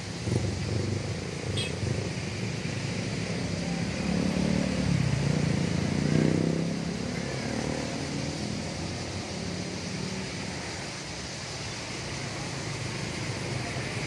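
Street traffic: motor vehicle engines running, with one passing louder about four to seven seconds in before fading.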